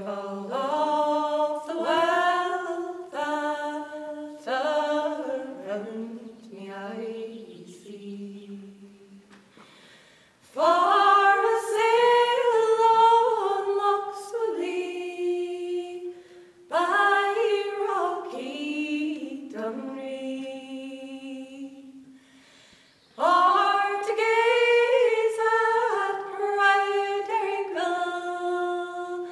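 Three women's voices singing a traditional song unaccompanied, in harmony, in long phrases with short breaks between them.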